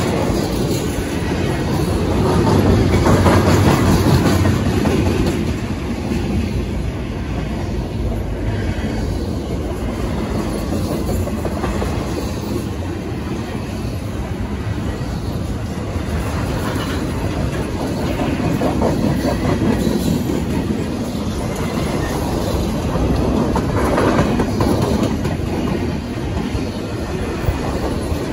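Freight train of empty double-stack intermodal well cars rolling past, steel wheels running on the rails in a continuous rumble with clattering over the joints; it swells louder a few seconds in and again near the end.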